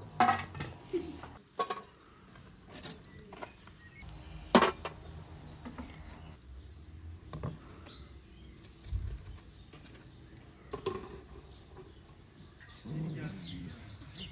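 Scattered sharp metallic knocks and clinks from a metal lid and tongs being handled over a charcoal-fired cake pan, the loudest about four and a half seconds in. Small birds give short, high chirps in between.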